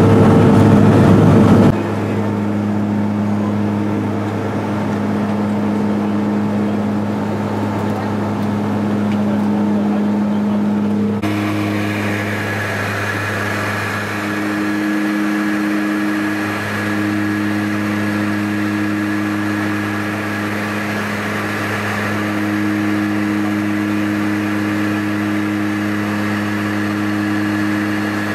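Propeller aircraft engines droning steadily, heard from inside the cabin: a constant low hum with several steady pitches, one of them fading in and out. It is louder and rougher for the first couple of seconds, and brighter in tone from about eleven seconds in.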